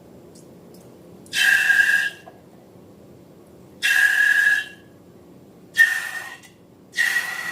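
Air squealing out of a stretched balloon neck in four short, high whistling squeals, each about half a second to a second long.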